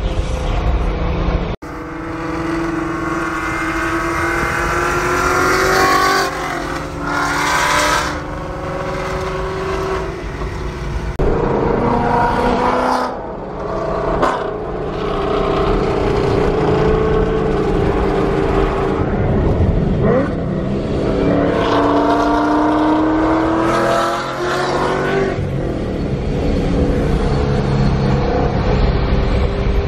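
A car engine and exhaust pulling hard through the gears, heard from inside the car. The pitch climbs and then drops at each of several shifts, over steady road rumble.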